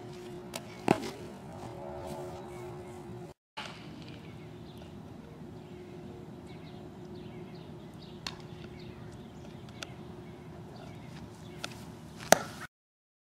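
Baseball bat cracking against a ball twice, sharp and loud, about a second in and near the end, as fly balls are hit, over steady outdoor background noise with faint bird chirps. The sound drops out briefly twice.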